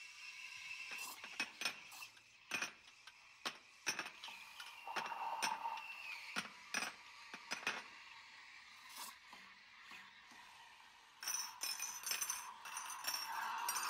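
Cups, glasses and spoons clinking at irregular moments over a steady background hiss, like crockery and cutlery being handled in a café. The clatter grows denser near the end.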